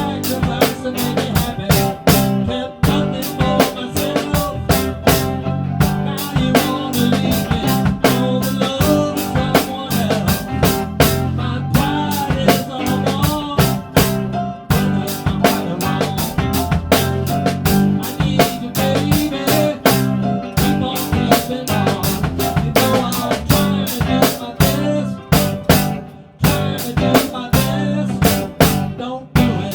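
A four-piece drum kit played in a steady rock groove, with bass drum, snare and rimshots, over a full band backing of bass, guitar and other instruments. The snare is a 5.5 x 14 Magstar purpleheart stave-segment drum.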